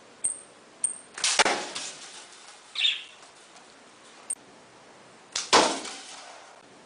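Two arrow shots from a bow, about a second in and again near the end. Each is a sharp snap at the release, followed a split second later by the impact of the arrow.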